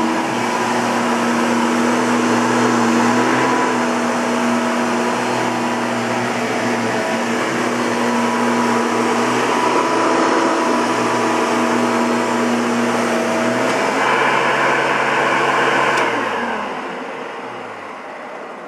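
Hoover Caddy Vac Elite bagged upright vacuum cleaner running steadily, then switched off near the end, its motor winding down with a falling hum.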